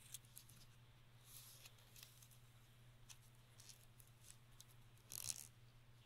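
Faint crinkling and rustling of a tiny square of origami paper being folded and creased between fingertips, with a louder crinkle about five seconds in. A low steady hum runs underneath.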